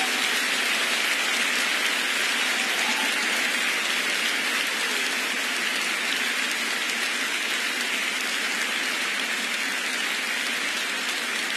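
Concert audience applauding steadily after a song, the clapping easing off a little near the end.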